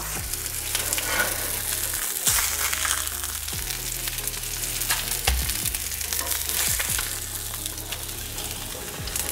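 Salmon fillets sizzling in hot oil in a cast iron skillet, with scattered short clicks and scrapes of a spatula as the fillets are lifted out.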